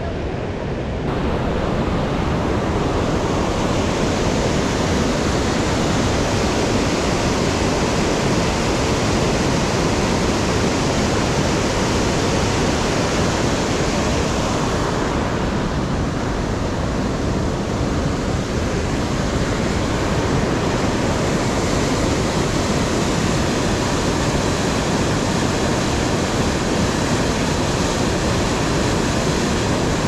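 Rushing white water of the Krimml falls and the fast mountain river below them: a loud, steady, even rush of water, a little louder from about a second in.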